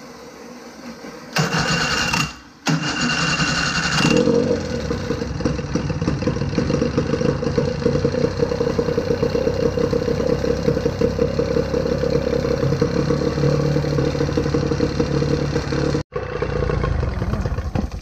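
1985 Evinrude outboard motor being started after a water pump repair: two short bursts of cranking, then it catches and runs steadily with a fast pulsing beat. It cuts off abruptly near the end, followed by a different low rumble.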